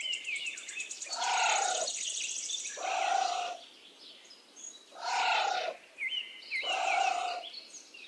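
Anteater (tamandua) calling: four short calls spaced roughly two seconds apart, with birds chirping in the background.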